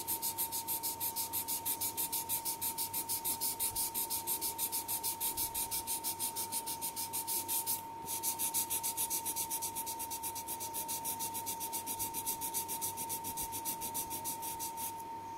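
Folded paper rubbed briskly back and forth over oil pastel on drawing paper to blend the colour: an even scratchy rasp of about five strokes a second, pausing briefly about eight seconds in.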